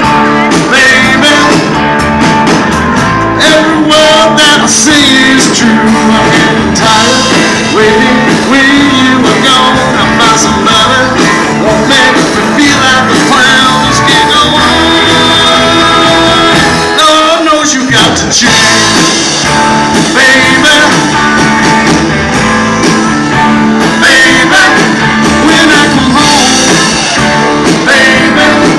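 Live band playing amplified music on electric guitars, bass guitar and drums, loud and continuous. The bass drops away for a moment about two-thirds of the way in.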